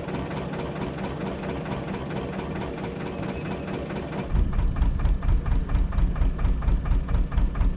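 Narrowboat engine running steadily under way. About four seconds in it grows louder and deeper, with a rhythmic low throb.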